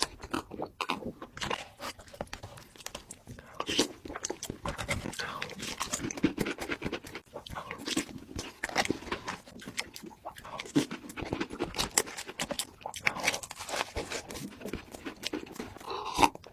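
Close-miked eating sounds of a chocolate dessert: irregular crunching and chewing, with wet mouth clicks and smacks.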